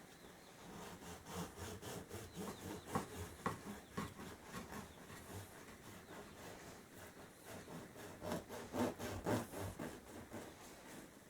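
Knife sawing back and forth through a crusty loaf of bread, a run of rough, uneven strokes that grow louder near the end.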